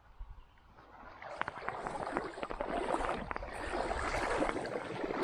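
Someone wading in a shallow creek, water sloshing and splashing around the legs. It starts about a second in and grows louder.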